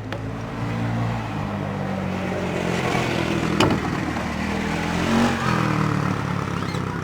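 A vehicle engine running nearby, its low hum swelling toward the middle and easing off near the end, as a vehicle passing by. A single sharp click sounds about halfway through.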